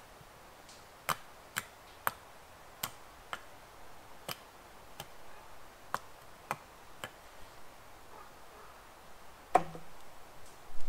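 A series of about ten sharp snaps or clicks at uneven gaps of roughly half a second, then a louder knock near the end.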